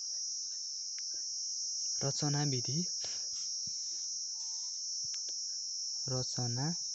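Steady high-pitched insect chorus, cricket-like, running without a break. A voice speaks briefly about two seconds in and again near the end.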